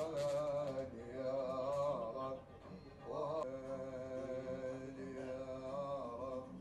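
A man singing an Arabic sholawat, a devotional song asking blessings on the Prophet Muhammad, through a microphone, in long held notes with a wavering, ornamented melody. The voice dips briefly about two and a half seconds in, then a new phrase rises and carries on.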